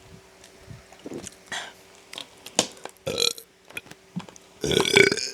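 A person burping: a few short sounds in the first half, a short burp about three seconds in, then a long, loud burp near the end.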